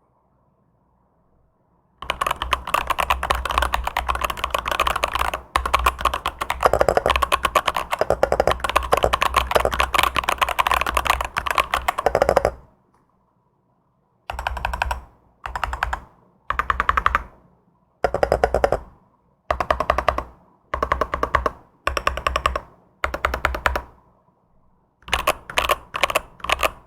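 Mechanical keyboard with Outemu Milk Green Pro switches on a solid 5 mm dog-bone plate being typed on: fast continuous typing for about ten seconds, then a series of short bursts of rapid keystrokes roughly once every second and a half, and a few quicker bursts near the end.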